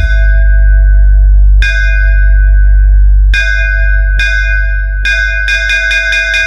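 Bass-test electronic DJ music: a heavy, sustained deep sub-bass tone under a bell-like synth note. The bell note is struck a few times with long gaps, then in quickening strikes over the last three seconds.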